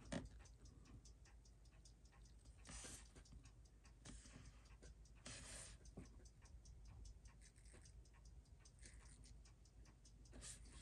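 Near silence with faint, rapid ticking and a couple of brief soft rustles.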